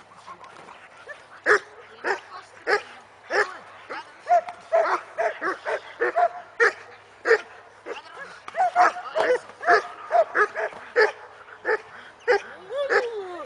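German Shepherd barking in sharp, excited barks during bite-work, with short whining yelps between; the barks are sparse at first and come rapidly, several a second, in the second half.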